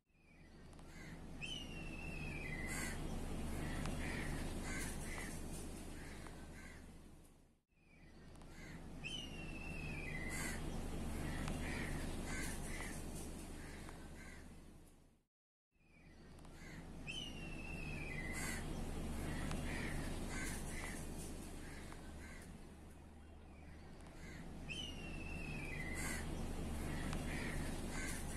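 Bird calls on a looped recording: a descending whistled call followed by a few short calls, over a steady hiss and low hum. The same few seconds repeat three times, cutting briefly to silence about every eight seconds.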